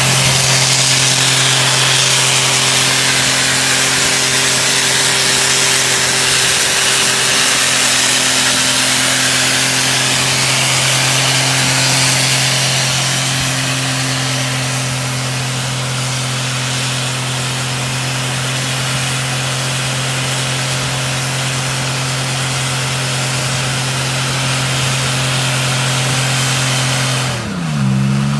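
Old sedan's engine held at steady high revs in a burnout, with the hiss of its front tyre spinning in wet ground and weeds and throwing heavy smoke. Near the end the revs drop and waver as the throttle comes off.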